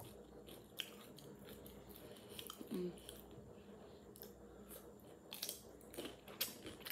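Close-miked mouth sounds of a person chewing and biting crunchy raw cucumber slices: scattered wet crunches and clicks, with a short voiced "mm" about three seconds in.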